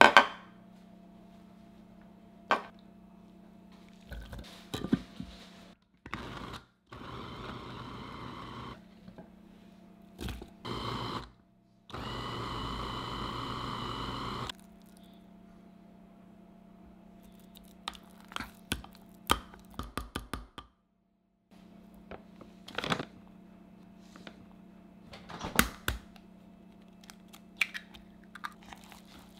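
Electric food chopper with a glass bowl, run in three pulses by pressing down on its motor top; the last pulse is the longest, about two and a half seconds. Around the pulses come sharp clicks and knocks of the glass bowl, lid and utensils being handled, with the loudest click at the very start.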